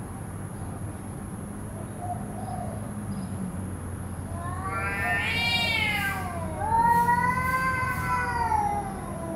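Two cats in a face-off giving long, drawn-out warning yowls: a rising-then-falling yowl about five seconds in, then a longer, lower one from about seven to nine seconds. A faint steady low hum runs underneath.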